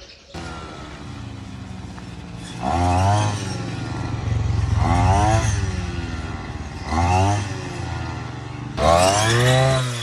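Shoulder-carried brush cutter reaping wheat, its small engine running and revving up and back down four times as it cuts.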